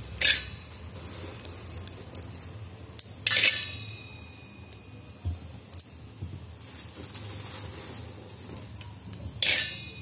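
A steel spoon stirring and scraping raw peanuts around the inside of a stainless steel electric kettle while they dry-roast. There are three loud clattering scrapes, just after the start, about three seconds in and near the end, with the kettle's metal ringing briefly after the second, and light clicks of nuts and spoon between them.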